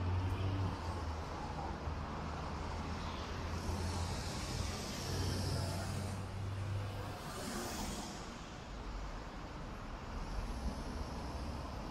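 City street traffic: a motor vehicle's engine running with a steady low hum that fades out about seven seconds in, over general road noise. Hissing comes in twice, once in the middle and more briefly just after the hum fades.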